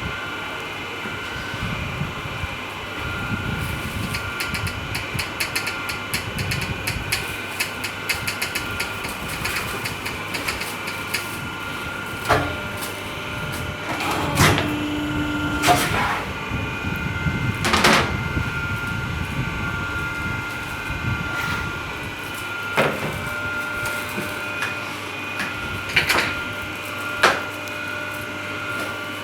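Hydraulic C-frame collar-and-cuff cutting press running, with a steady whine and hum from its hydraulic unit. In the second half come about seven sharp knocks from the press working, and a brief lower tone midway.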